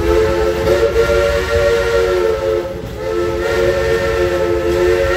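Steam locomotive's chime whistle sounding two long blasts, a chord of several notes held steady, with a short break between them about two and a half seconds in. The train's low running rumble is underneath.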